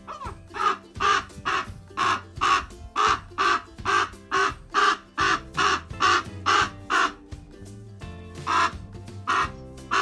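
Raven mimicking a seagull: a fast run of loud gull-like calls, about two a second, a short pause, then a few more calls. Background music plays underneath.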